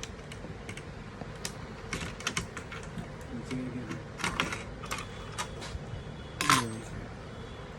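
Irregular light clicks and taps from a laptop being taken apart to remove its motherboard, as parts and tools are handled; the strongest click comes about six and a half seconds in.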